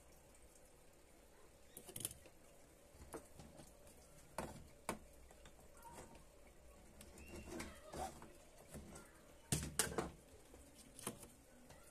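Scattered light clicks and knocks of tools and parts being handled on a workbench, about eight in all, the loudest cluster near the end, over a low steady room hum.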